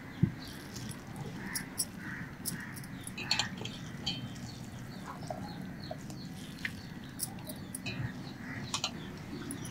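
Birds calling over and over in the background, with light clicks and taps as soaked bundi is dropped into a glass bowl of curd and handled with a wooden spoon; one soft thump about a quarter second in.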